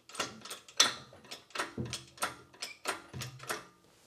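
Hand-pumped hydraulic engine hoist taking up the weight of a machine saddle: a run of clacks and knocks, about three a second, with a couple of short low creaks.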